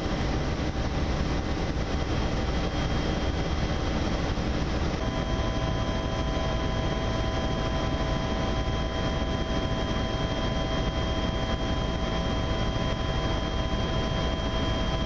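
Helicopter engine and rotor noise heard from inside the cabin in flight: a loud, unbroken drone with thin steady whining tones over it. A few new whining tones join about five seconds in.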